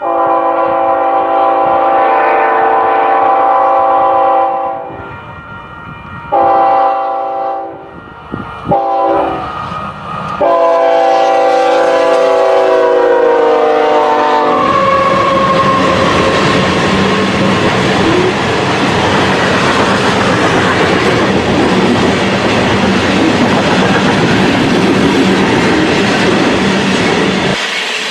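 Diesel locomotive's multi-chime air horn sounding the crossing signal: a long blast, a short one, a very short one and a final long blast that drops in pitch as the locomotive passes. Then the train rolls by with a loud steady rumble and wheels clattering over the rail joints, which cuts off near the end.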